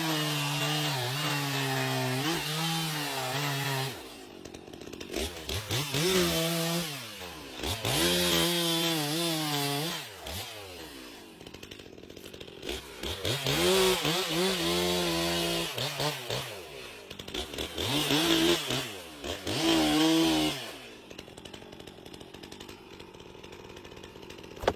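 A chainsaw held at high revs, then dropping back and revving up again in four more bursts, its pitch rising and falling with each. Near the end it settles to a quieter low running.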